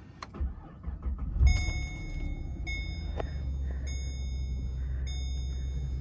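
The 2010 Holden Commodore SSV's 6.0-litre V8 cranking, catching with a brief rev about a second and a half in, then settling into a steady idle. The car's warning chime dings repeatedly throughout, and there is a click just after the start.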